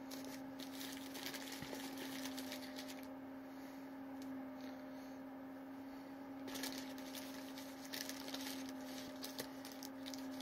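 Paper wrapper of a Burger King Whopper crinkling and rustling as it is unwrapped by hand. The crackling comes in irregular spells and eases off for a few seconds in the middle, over a steady low hum.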